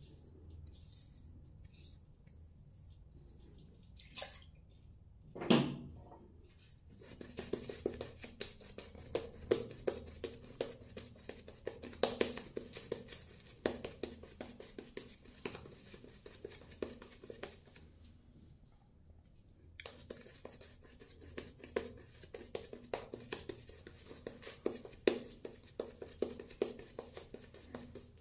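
Shaving brush scrubbing lather onto the face: a fast, wet crackling and swishing that starts about seven seconds in, pauses briefly past the middle, then goes on. Before it, a short loud sound sliding down in pitch, about five seconds in.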